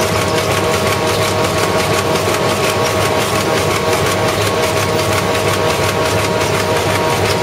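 Flexo printing machine running steadily with sheets feeding through its rollers: an even mechanical hum and rush with a few constant tones that does not change.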